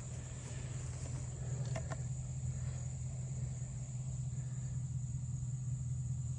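A 68cc two-stroke chainsaw engine idling, a steady low hum that does not change.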